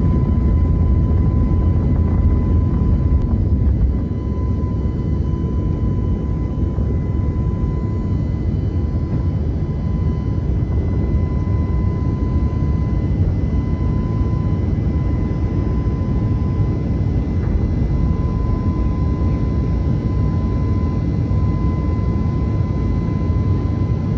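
COMAC C919's CFM LEAP-1C turbofan engines at takeoff thrust, heard from the cabin beside the wing through the takeoff roll, liftoff and climb-out. A loud, steady rumble carries a thin, high, steady whine. The rumble drops a little about four seconds in and then holds.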